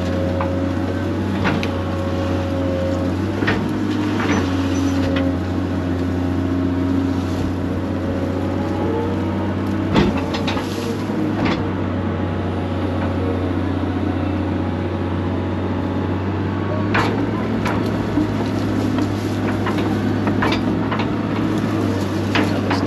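Excavator's diesel engine running steadily under load, its note shifting as the machine works, with scattered sharp knocks and clanks from the digging, the loudest about ten seconds in.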